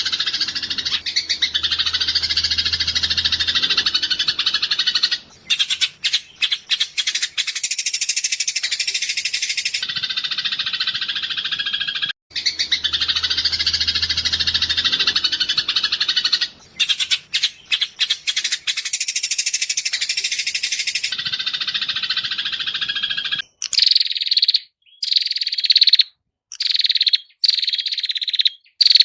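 Masteran recording of cage songbird song: a long, dry buzzing trill breaks into a ragged, stuttering rattle, and the same passage repeats about twelve seconds later. Near the end it gives way to short, separate song phrases with brief silences between them.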